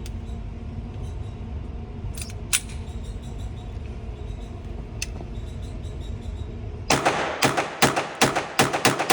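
Steady low rumble with a few faint clicks. About seven seconds in, a .22 semi-automatic firearm is fired in a fast string of shots, about four a second.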